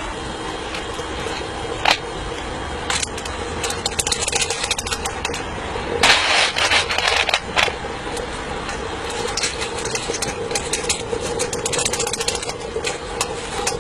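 Electric fan humming steadily as it draws the charcoal fire in a live-steam locomotive's firebox, with scattered metallic clinks and rattles that bunch up into a busy clatter about six seconds in.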